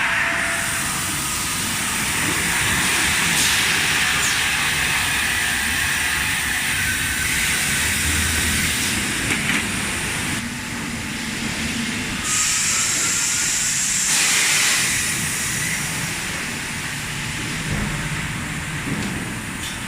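Refrigerator-cabinet thermoforming machine running: a steady industrial noise with hissing that swells for several seconds at a time, about 3 s in and again about 12 s in, with a few short clicks.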